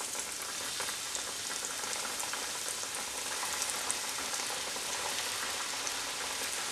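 Hot oil sizzling steadily with many fine crackles as battered, cornflake-coated banana pieces deep-fry in a pan.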